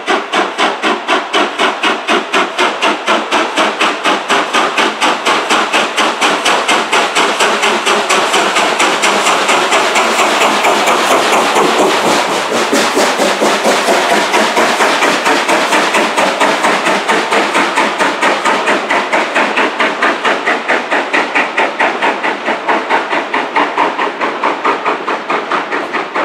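Steam locomotive 32424 Beachy Head, a two-cylinder Atlantic, working hard as it pulls a train of coaches away, its exhaust coming in a steady, even chuff of about four beats a second.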